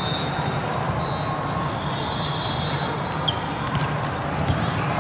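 Steady background din of a big indoor volleyball hall with play on several courts. A few sharp smacks of volleyballs being hit or bounced stand out, the clearest about three seconds in and again near the end.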